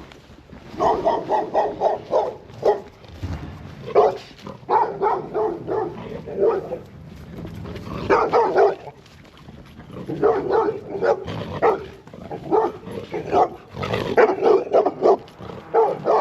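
A dog barking repeatedly in quick runs of short barks, with brief pauses between the runs.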